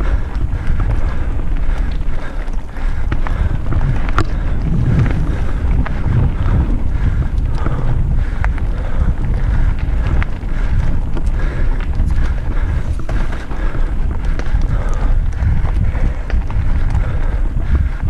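Mountain bike descending a gravel forest trail at speed: wind buffets the camera microphone in a loud low rush over the rumble of tyres on loose gravel, with scattered sharp clicks and rattles from stones and the bike.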